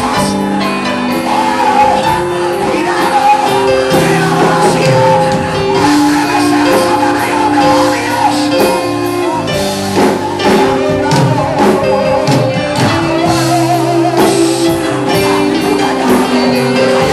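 Loud worship music: a sung melody over held chords and a steady beat.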